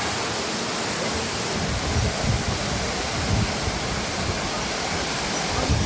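Steady rushing roar of a jungle waterfall, with uneven low rumbling mixed in from about two seconds in.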